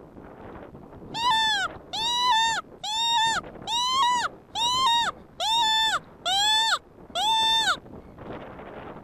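Hand-blown predator call sounding a wounded-hare distress cry to lure a fox: eight wavering squalls of about half a second each at an even pace, with wind noise on the microphone between them.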